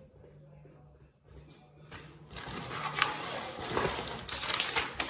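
Clear plastic bag of flat-pack furniture fittings crinkling and rustling as it is handled and torn open, with sharp clicks of small metal screws and parts, starting about two seconds in after a quiet stretch with a low hum.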